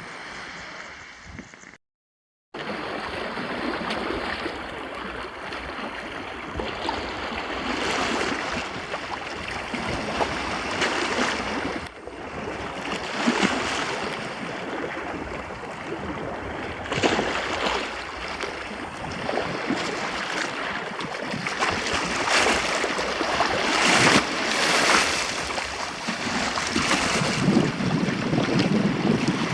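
Sea waves washing and breaking, swelling louder every few seconds, with wind rumbling on the microphone. The sound drops out completely for about half a second near the start, then comes back.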